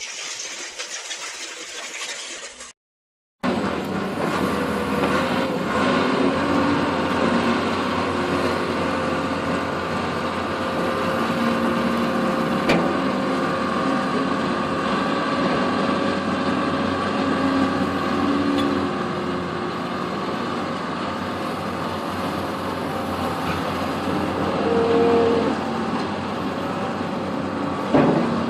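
Heavy machine's engine running steadily, with a short silent gap about three seconds in where the footage cuts between clips.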